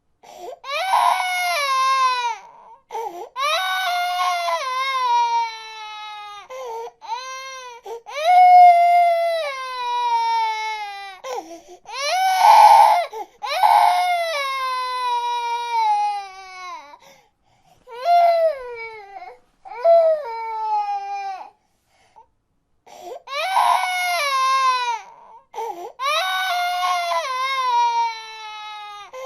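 Baby crying: a string of high-pitched wails, each sliding downward in pitch, broken by short gasps for breath and a brief pause about three-quarters of the way through.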